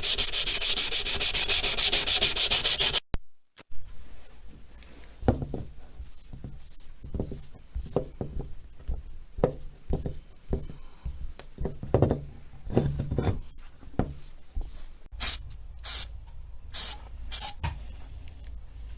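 Fast, evenly repeated sanding strokes, which stop suddenly about three seconds in. Scattered light knocks and clicks follow, and near the end come several short hissing bursts.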